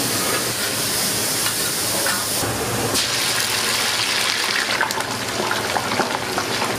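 Steady sizzling hiss of cooking: diced steak frying on a flat-top griddle, then French fries bubbling in hot oil in a deep fryer, the change coming partway through.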